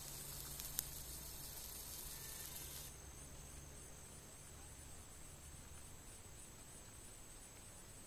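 Faint, high-pitched insect chorus: a shrill steady hiss that drops away about three seconds in, leaving a soft chirp repeating a few times a second. One sharp click just under a second in.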